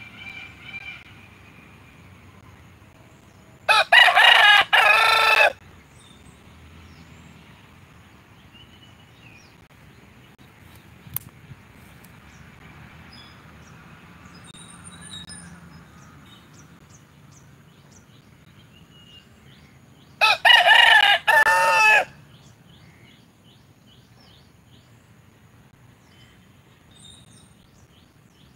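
A rooster crowing twice: a loud cock-a-doodle-doo about four seconds in and another about twenty seconds in, each lasting under two seconds.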